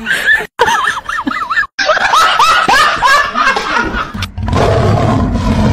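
High-pitched laughter in quick repeated bursts, cut off abruptly twice as clips change, with a low rumble under it near the end.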